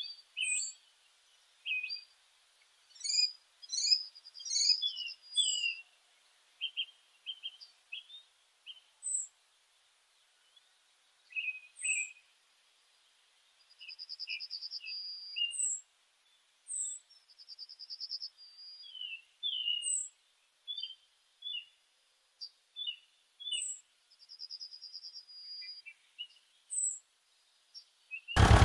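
Small birds chirping and singing, many short high calls overlapping, with a brief rapid trill that comes back three times in the second half.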